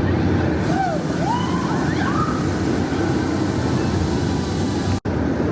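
Busy theme park ambience: a steady din of crowd and machinery, with a few high wavering, rising-and-falling cries or whistles about a second in. The sound drops out for an instant near the end.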